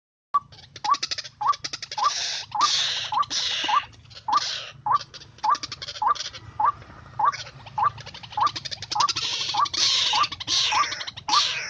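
White-breasted waterhen (ruak-ruak) calling: a short rising note repeated about twice a second, mixed with harsh, raspy croaks. It starts abruptly about a third of a second in.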